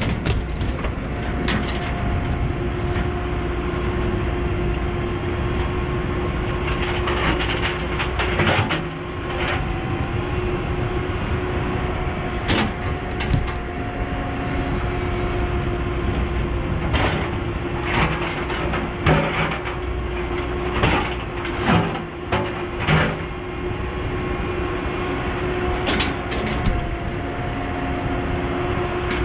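Cat 314E excavator's diesel engine running steadily with a constant whine, while the bucket and rocks give scattered clanks and knocks, several of them in quick succession through the middle.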